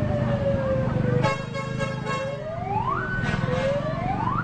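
Telolet-style electric bus horn sounding a siren-like wail: a tone slides slowly down, then whoops up twice. A short multi-tone horn blast comes about a second in, over a steady low hum.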